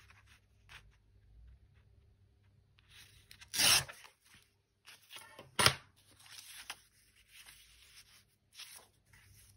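Paper being torn against the edge of a steel ruler: one short loud rip about three and a half seconds in, a sharp brief crack about two seconds later, and light paper rustling and handling around them.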